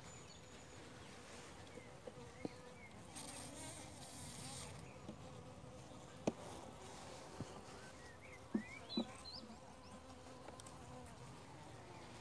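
Honeybees humming steadily over an open hive. A few sharp clicks come as the wooden frames are handled with a metal frame grip; the loudest is about six seconds in, and there is a quick pair near nine seconds.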